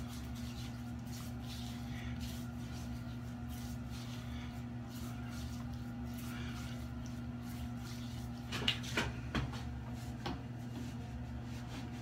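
Face being rinsed at a sink by hand: soft splashing and rubbing of water on the skin over a steady low hum. A few louder sudden splashes or knocks come near the end.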